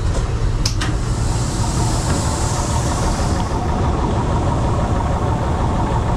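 Heavy farm machine's diesel engine running steadily, with two short clicks a little under a second in.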